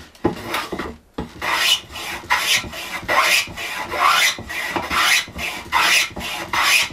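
Hand plane taking quick, repeated strokes along the edge of a wooden board to chamfer it, each stroke a scraping swish of the blade cutting a shaving. The strokes come about twice a second, starting about a second in.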